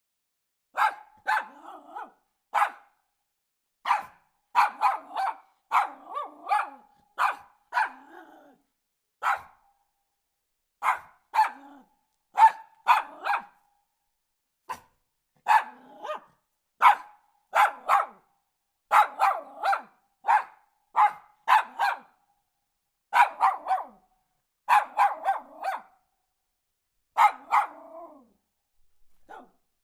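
A dog barking repeatedly in quick runs of several sharp barks, with short pauses between the runs.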